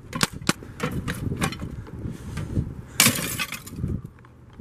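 Glass breaking: a few sharp knocks and clinks, then a louder shattering crash about three seconds in.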